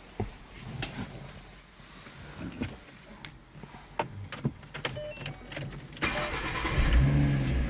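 Scattered light clicks and knocks, then about six seconds in a 2012 Ford Mustang's engine starts and keeps running.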